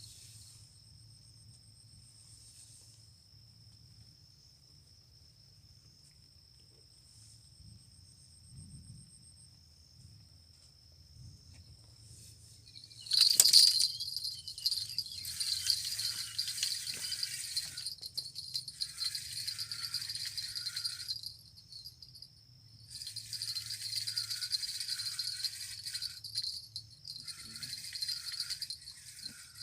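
Insects trilling steadily in thin high tones. About 13 s in there is a sharp click, then a loud high-pitched rattling buzz comes in bouts of a few seconds with short breaks.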